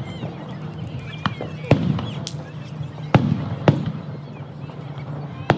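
Fireworks going off: about half a dozen sharp bangs at uneven intervals, over the chatter of a crowd.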